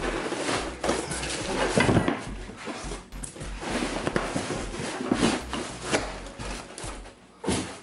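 A styrofoam packing block being handled and pulled out of a cardboard box: irregular rubbing and scraping of foam against cardboard and plastic wrap, with a few sharp knocks.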